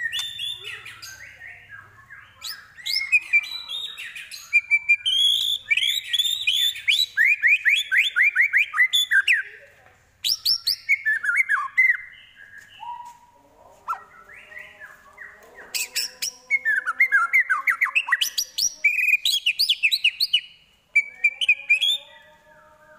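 White-rumped shama singing a loud, varied song of fast runs of repeated notes, chatter and whistles, with short breaks about ten seconds in and near the end. The song includes imitations of other birds' calls.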